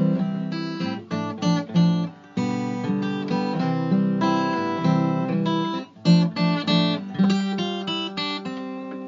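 Instrumental introduction to a song: strummed chords on a string instrument in a steady rhythm, before the singing comes in.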